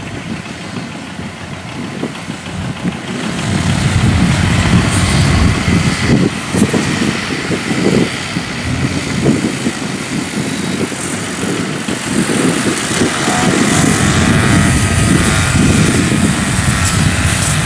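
Engine of a farm machine hauling rice sacks, running steadily and growing louder about three and a half seconds in.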